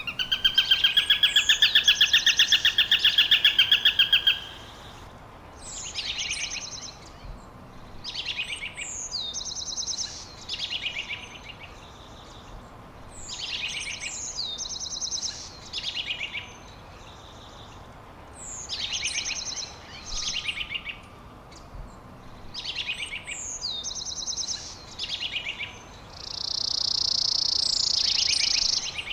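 Songbirds singing: one bird repeats a short song phrase every two to three seconds, each opening with a quick downward swoop. A loud, rapid trill runs through the first four seconds, and a steady buzzy trill comes near the end.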